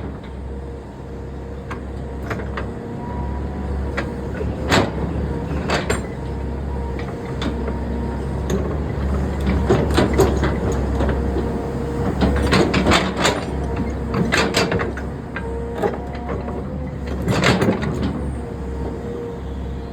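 Heavy construction machinery running steadily, with a constant whine over its engine, and repeated sharp metallic clanks and bangs, several in quick clusters about ten, thirteen and seventeen seconds in.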